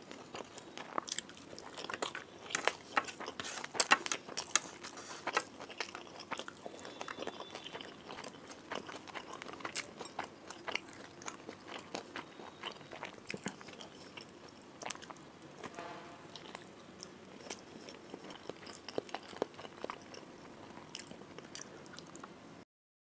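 Close-miked eating sounds: chewing and crunchy bites of rice with fried fish, then boiled egg, eaten by hand. The sharp crunches are thickest and loudest in the first few seconds, thin out after that, and stop abruptly just before the end.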